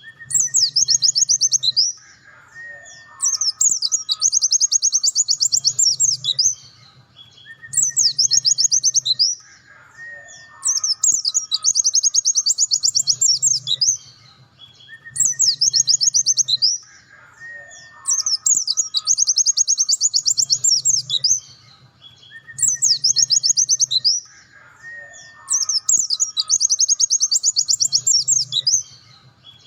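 Pleci dakun (white-eye) singing its full 'nembak' song: fast, high trilled phrases one after another with short pauses between them, and fainter lower whistled notes in the pauses.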